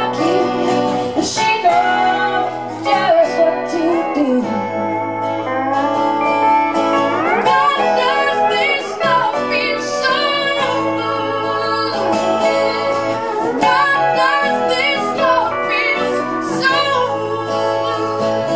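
A live country-style song: a woman singing over guitar accompaniment, with a steady bass line underneath.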